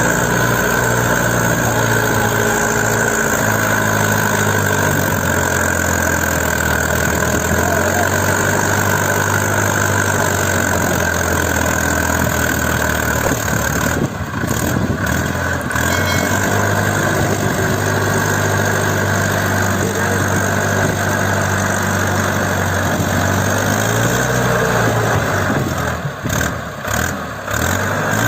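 Mahindra Arjun Ultra 555 DI tractor's diesel engine running steadily, its engine speed changing a few seconds in and again near the end, with brief dips in loudness about halfway and near the end.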